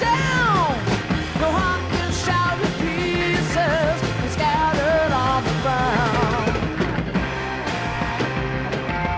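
Rock song played by a band: steady drums and bass under a melodic lead line that bends and wavers in pitch.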